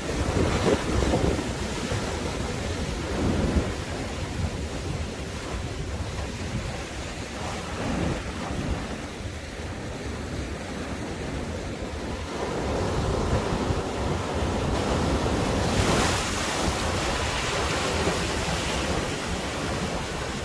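Surf breaking and washing up a sandy beach in repeated swells, with a bigger, brighter wave about three-quarters of the way through. Strong sea wind buffets the microphone with a steady low rumble.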